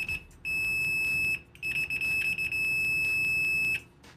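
Sanwa PC700 digital multimeter's continuity beeper sounding a steady, high-pitched, very loud beep as the test leads touch, breaking off briefly twice and stopping near the end.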